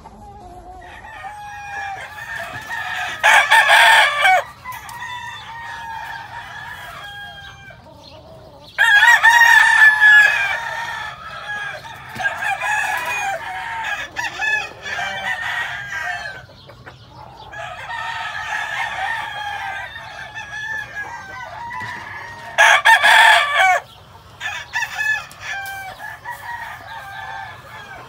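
Gamecock roosters crowing: three loud crows, about three, nine and twenty-three seconds in, each lasting a second or two. Between them runs a steady chorus of other roosters crowing and chickens clucking.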